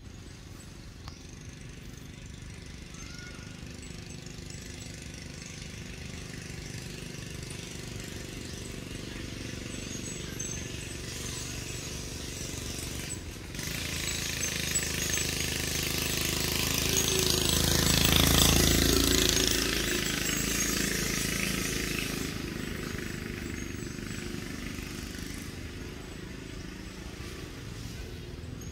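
A motor engine running, growing steadily louder to a peak about two-thirds of the way through and then fading, like a vehicle passing by.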